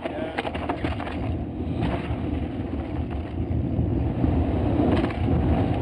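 Mountain bike tyres skidding and crunching down a steep slope of loose dirt and rock, a rough steady scraping that grows louder, with a few sharp clatters of the bike over bumps near the start, about two seconds in and about five seconds in.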